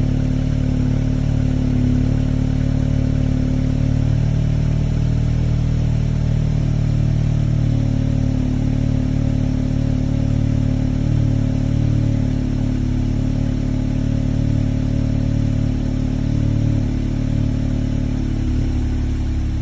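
Stock 2017 Audi S3's 2.0 TFSI turbocharged four-cylinder idling steadily on its cold-engine warm-up, with a steady, even exhaust note. The sound eases slightly near the end.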